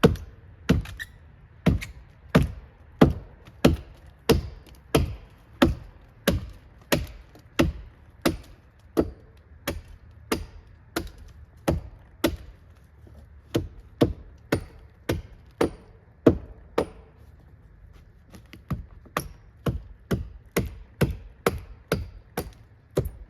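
Axe chopping into wood: a steady run of sharp strikes, about three every two seconds. They break off about seventeen seconds in, then resume at the same pace.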